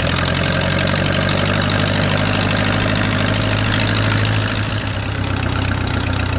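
Case 430 tractor engine running steadily while the tractor drives in fourth gear, low range, its top gear in that range. The engine note eases slightly about four and a half seconds in.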